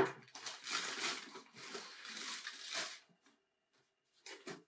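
Crumpled brown packing paper rustling and crinkling inside a shoebox as a hand digs through it, for about three seconds, then a short rustle near the end.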